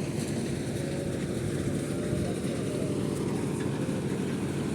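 A machine engine running steadily on a construction site, a low, even drone, with faint voices in the background.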